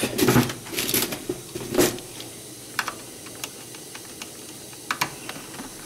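Scattered clicks and rustles of hands working inside the opened plastic housing of an iHome iH36 stereo, taking a circuit board out. The clicks are busiest in the first two seconds, with one more sharp click about five seconds in, over a low steady hiss.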